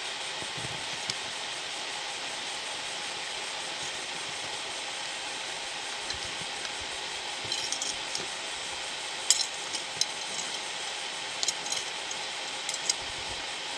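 Small clicks and clinks of plastic angle-grinder housing parts being handled and fitted together, scattered through the second half, over a steady hiss.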